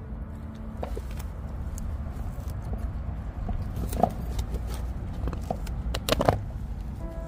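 Dog chewing and gnawing on a raw deer rib cage: scattered crunches and clicks of teeth on bone, the sharpest about four seconds in and a quick cluster just after six seconds, over a low steady rumble.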